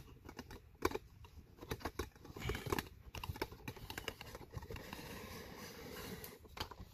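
Irregular light clicks and rustling from a phone being handled up close, fingers and a fabric sleeve brushing against it, with a couple of sharper clicks.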